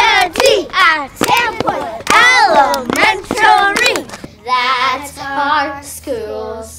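Group of children singing a chant together, with hand claps. About four seconds in, this gives way to a voice singing long held notes.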